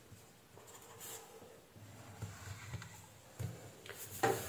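Ballpoint pen scratching faintly on paper as a diagram is drawn. Near the end come a few light knocks and rustles as a plastic controller unit and the paper are moved on the bench.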